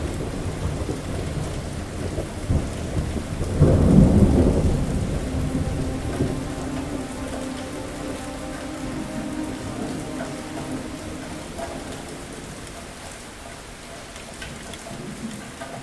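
Steady rain falling, with thunder: a low rumble swells about four seconds in and dies away slowly over the next few seconds under the rain.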